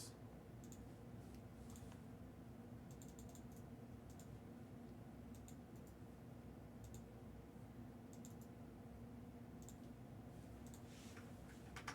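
Near silence under a steady low hum, with faint scattered clicks in small groups every second or so, like light typing on a computer keyboard.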